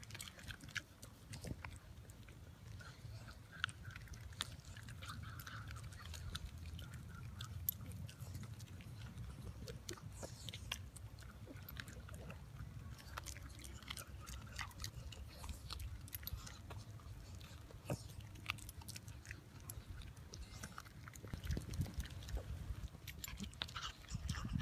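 Schnauzers chewing and crunching live black soldier fly larvae picked off the pavement: a run of irregular small crunches and bites.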